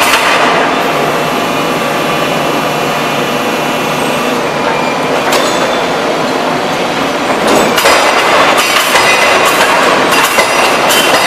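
3-ton hydraulic open die forging hammer: a steady loud hydraulic and shop noise with a single knock about five seconds in, then a fast run of sharp ringing blows, about two or three a second, from about seven and a half seconds in.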